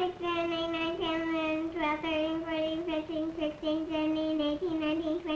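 A young girl counting aloud in a high sing-song chant, one short syllable after another on nearly the same pitch.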